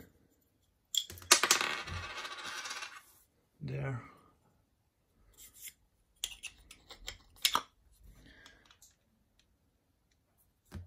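Steel parts of a Habegger 102 milling attachment being handled: about a second in, a ringing metallic rattle and scrape lasting about two seconds, then a few light metal clicks and taps later on as a round steel disc on the height-support column is fitted.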